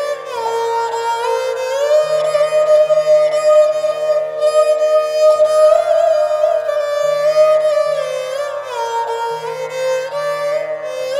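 Instrumental background music in an Indian classical style: a string melody that slides from note to note over low held notes.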